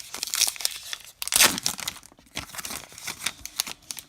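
A baseball card pack wrapper being torn open and crinkled by hand, in a run of crackly rustles with the loudest rip about a second and a half in.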